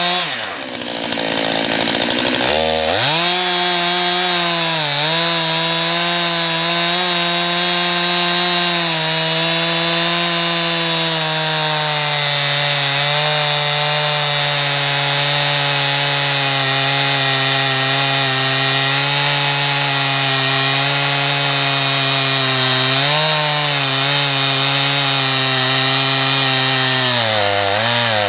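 Gasoline chainsaw fitted with a guide-bar sawmill attachment ripping a log lengthwise into boards, engine held at high revs under load. The engine speed drops sharply at the start and comes back up about two and a half seconds in, then runs steadily with brief sags in pitch as the chain bites.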